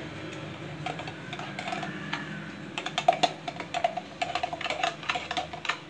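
A lump of ghee crackling and spitting as it melts in a hot nonstick pan. It sets out as scattered pops that come thick and fast from about three seconds in.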